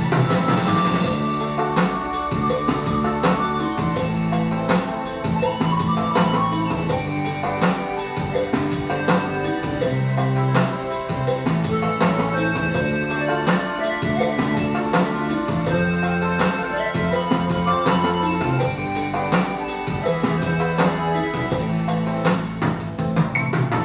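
Kurtzman K350 arranger keyboard playing a bolero: a hand-played melody over the keyboard's own auto-accompaniment of bass and drums, with a steady beat.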